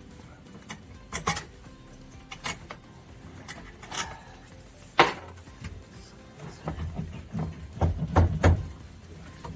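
Scattered sharp clicks and knocks of hand tools and metal parts being handled, the loudest about five seconds in, with a few dull thumps near the end.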